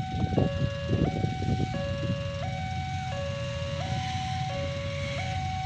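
Electronic railway level-crossing warning alarm sounding as a train approaches, two tones alternating evenly, roughly every 0.7 s, over a low rumble with a few bumps in the first couple of seconds.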